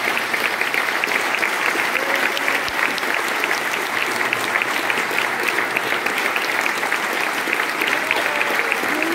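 Concert audience applauding, a steady round of dense clapping that continues without a break.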